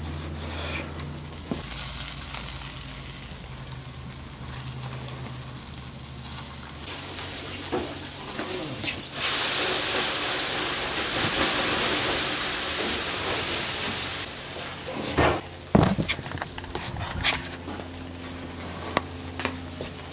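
Hamburger patty sizzling as it cooks on a burning wooden skateboard deck. A louder steady hiss runs for about five seconds in the middle, and there are a few sharp knocks near the end.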